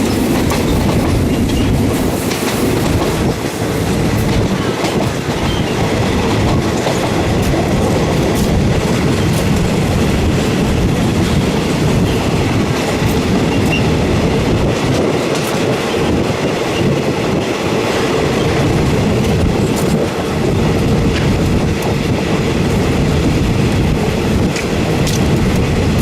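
A Thai third-class passenger train running steadily, its wheels clicking over the rail joints amid a continuous rumble and rattle, heard through the carriage's open windows.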